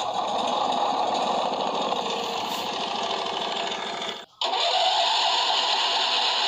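2006 Huskee lawn tractor engine starting up and running with a fast, even pulse. A little over four seconds in, the sound cuts out abruptly for a moment, then comes back as a steadier engine run.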